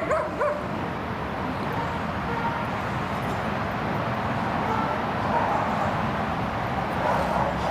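Steady hum of distant road traffic, with a couple of short yips from a young Malinois in the first half-second.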